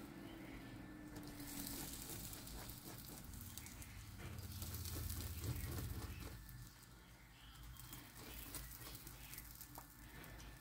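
Faint soft dabbing and patter of a silicone basting brush spreading melted garlic butter over freshly baked biscuits in a hot cast iron skillet, with a faint sizzle. A low hum swells and fades in the middle.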